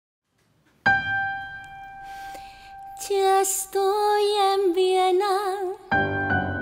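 A single keyboard note sounds about a second in and is held, giving the pitch. A woman then sings a short phrase an octave below it with vibrato, and piano chords come in near the end.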